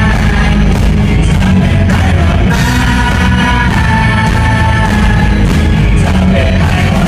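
A live rock band playing loud: a male singer singing over electric guitars and drums.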